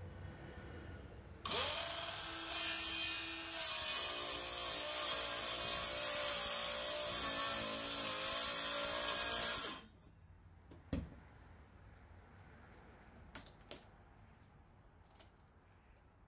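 Cordless circular saw spinning up about a second and a half in and cutting through rotted plywood for about eight seconds, then stopping. A single knock follows.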